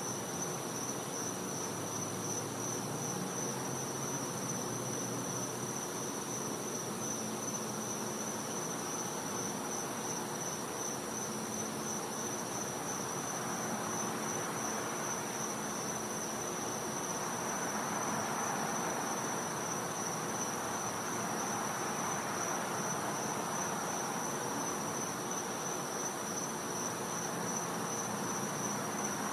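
Night insect chorus: a steady, high-pitched, slightly pulsing trill of many insects, which the recordist calls cicadas. Beneath it a soft background hiss swells a little in the second half.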